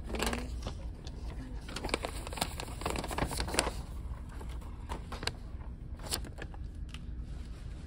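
Scattered clicks and rustles of small items and packaging being handled, over a steady low background hum; busiest from about two to four seconds in.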